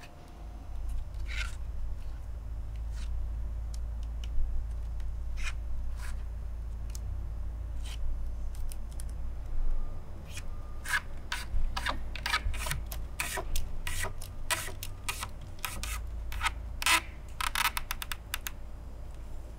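Strips of rattan cane rubbing and scratching as fingers work them through a hand-woven cane chair seat: scattered scratches at first, then a dense run of quick scratchy clicks from about halfway on, over a low steady hum.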